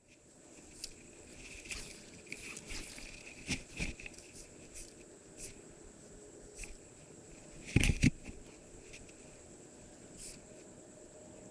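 Close handling noise of fishing tackle while a fly is changed: scattered clicks, rustles and crunches, with a loud double knock about eight seconds in, over a steady faint hiss.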